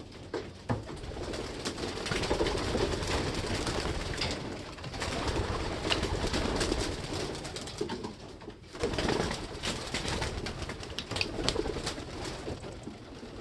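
Racing pigeons cooing, against a steady background hiss, with a few short clicks scattered through.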